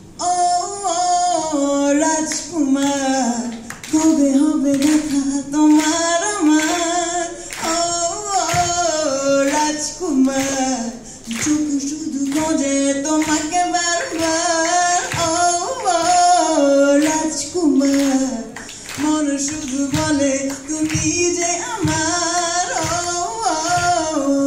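A woman singing a Bengali song into a microphone through the hall's sound system, gliding through long held notes with vibrato. Sharp hand claps keep time under the voice.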